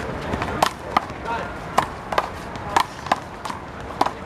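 A rubber handball, the big blue ball of one-wall handball, being struck by hand and smacking off the wall and ground during a rally: a series of sharp smacks, several in quick pairs.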